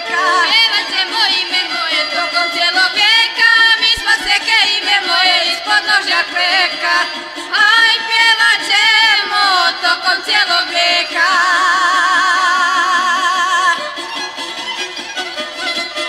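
Izvorna folk song: voices singing with heavy vibrato over the band, then about eleven seconds in a fiddle takes the lead with a held, wavering line.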